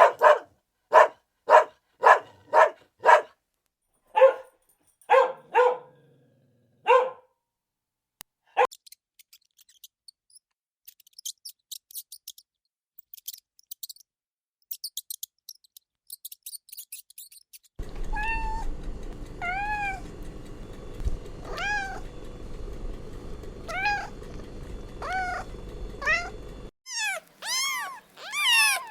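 A run of short, sharp pet calls about twice a second, then faint high chirps. From past halfway a cat meows repeatedly over a steady background hum, and higher-pitched meows follow near the end.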